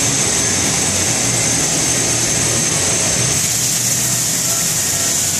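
Haas CNC milling center running, a steady mechanical noise with a strong high hiss over a low hum.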